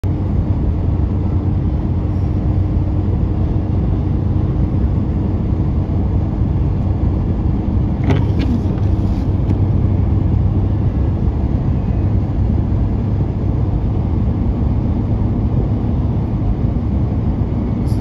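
Steady low rumble of a Ford F-250 pickup's engine and tyres on a snow-packed road, heard inside the cab. A few brief clicks come about eight seconds in.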